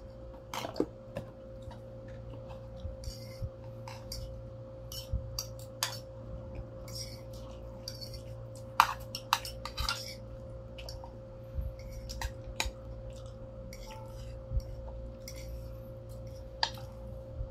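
Metal spoon and fork clinking and scraping on plates in scattered sharp clinks, with chewing and slurping of instant noodles between them.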